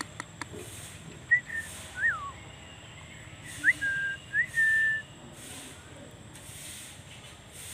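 A person whistling to a dog: four or five short whistled notes, several sliding up and then holding briefly, one dropping away, with a few light clicks near the start.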